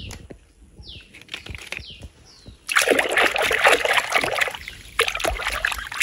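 A hand splashing and sweeping through water in a plastic tub. It starts loudly a little before halfway in, dips briefly, then goes on. Before it, a few short falling chirps.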